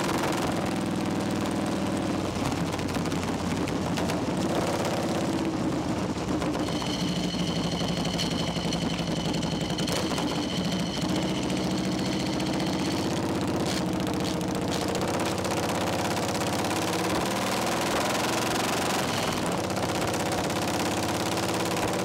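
Harley-Davidson Shovelhead V-twin engine on a chopper, running steadily, heard from on the bike. A high steady tone sounds over it for about six seconds in the middle.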